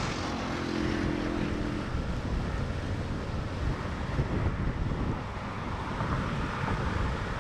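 Wind buffeting the microphone over the steady rush of the high-running Mojave River flowing past a bridge. A steady engine hum fades out about two seconds in.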